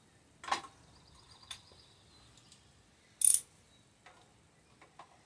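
Scattered clicks and knocks of hand tools and small metal parts being handled, with one sharp, bright metallic clink about three seconds in, the loudest sound.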